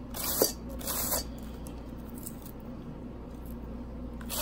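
Handheld shredder blade scraping down a half head of raw cabbage, shaving it into shreds, with two crisp strokes within the first second and fainter scraping after.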